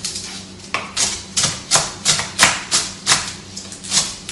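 Kitchen knife chopping spring onions on a cutting board: a quick run of sharp knocks, about three a second, starting under a second in.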